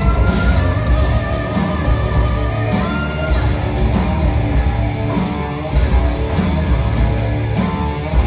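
Live rock band playing electric guitars over drums, with held guitar notes ringing out above the rhythm.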